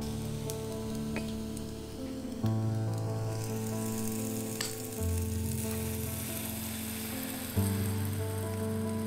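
Croissant dough sizzling in a hot Dash mini waffle maker as it cooks into a croffle, the sizzle growing louder from about three seconds in. Background music plays along.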